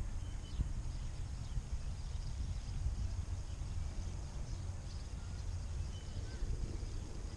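Wind rumbling and buffeting on the microphone, with a few brief faint high chirps.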